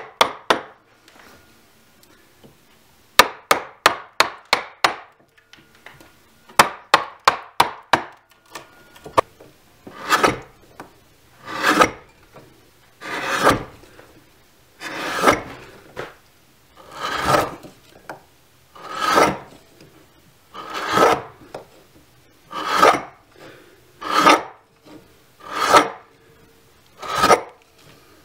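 Large carving gouge hollowing the bowl of a mug carved from green birch: quick runs of sharp taps as the gouge is driven into the wood during the first eight seconds or so, then, from about ten seconds in, long scraping slicing strokes of the gouge paring out wood, about one every two seconds.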